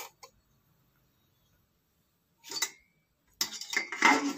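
Stainless steel lid being set on an electric cooker. After a quiet stretch there is one short clink, then about a second later a longer run of metal clatter and scraping as the lid is seated.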